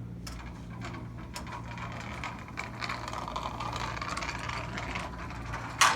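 Mousetrap-powered car running across the floor, its axle and wheels rattling and clicking with a whirring that builds through the middle. A single sharp knock comes near the end.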